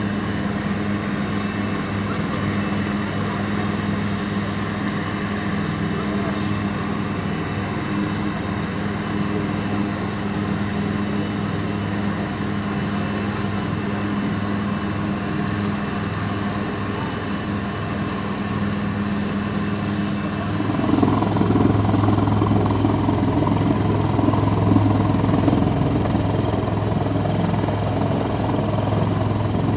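Military helicopter's turbine and rotor running, a steady, loud mechanical hum. About two-thirds of the way through the sound changes abruptly and gets louder, with a deeper rotor drone as the helicopter hovers.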